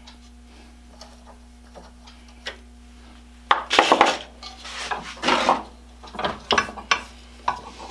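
Steel hand tools clinking and scraping on metal as a Heli-coil thread tap and its tap handle are backed out of a stripped aluminum locking handle and handled. It starts with a few faint ticks and turns to louder clattering and clicks about halfway through.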